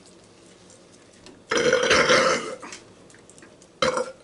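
A man burping loudly for about a second, then a shorter second burp near the end.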